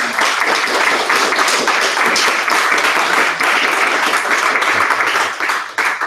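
Audience applauding steadily with dense clapping.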